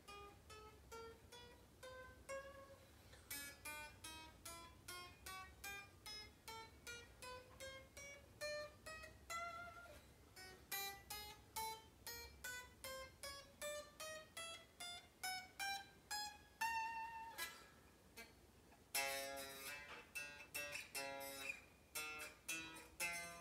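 Epiphone SG Muse electric guitar with single notes picked one fret at a time, climbing up the neck in two runs, then a few chords near the end: playing each fret to check for high frets, which turn out no worse than a slightly high one.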